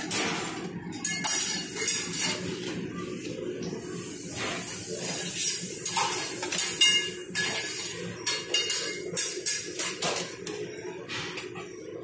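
Stainless steel tongs clinking and scraping against a metal steam-table pan as chunks of raw beef are picked up: many short, sharp clicks over a steady background hum.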